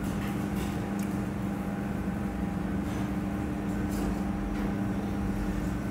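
Steady low machine hum at a constant pitch, with a few faint ticks.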